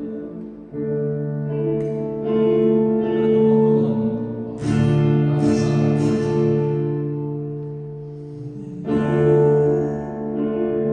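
Guitar chords strummed and left to ring, a new chord struck every few seconds, as a sound check before a concert.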